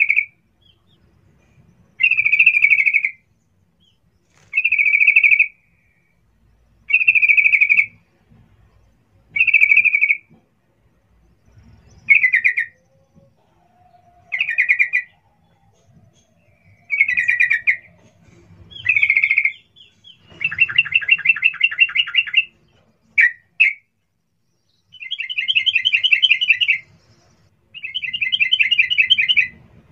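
Yellow-vented bulbul singing: short, bright phrases repeated about every two and a half seconds, then, from about twenty seconds in, longer, fast warbling phrases.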